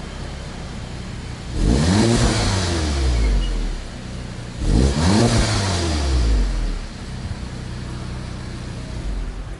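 2019 VW Golf GTI (MK7.5) 2.0-litre turbocharged four-cylinder with stock exhaust, idling and revved twice while standing still, each blip climbing quickly and falling back to idle.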